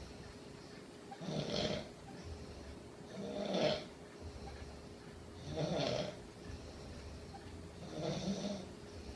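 A sleeping person snoring, four snores at an even pace about two seconds apart.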